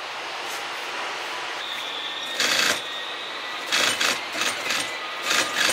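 Sewing machine stitching upholstery fabric in four short bursts, starting and stopping, over a steady background hiss.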